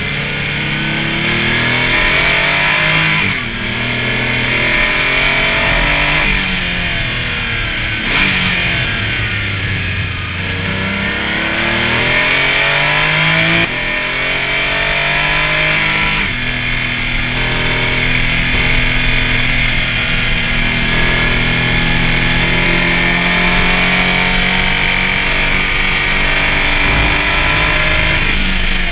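Porsche Cayman race car's engine at racing speed, the revs climbing and falling repeatedly with several sudden pitch changes as it shifts through the gears.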